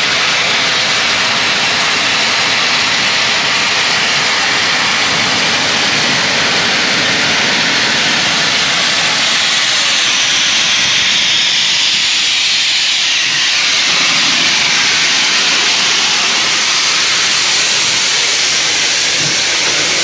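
NSW 38 class streamlined steam locomotive 3801 hissing loudly and steadily as it rolls slowly past, steam blasting from its open cylinder drain cocks low at the front.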